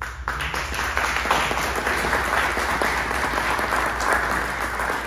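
Audience applauding: a steady clapping of many hands that starts right away and keeps going.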